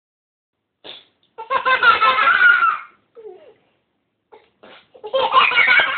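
Young girls laughing: two long bursts of laughter, the first about a second and a half in and the second near the end, with short sounds between.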